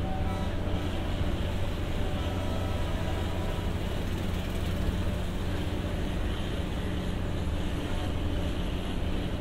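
Diesel generator set aboard an ex-JR 203-series KuHa 202 car running steadily: a constant low engine drone that does not change in pitch. It is the set that supplies onboard power to this former electric car on a non-electrified line.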